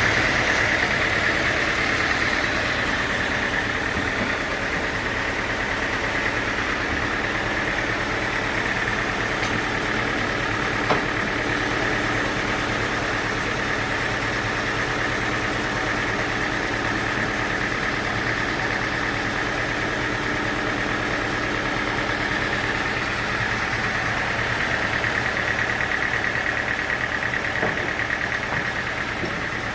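Engine-driven sawmill running steadily, a continuous machine drone with a high steady whine over it; a single sharp click about eleven seconds in.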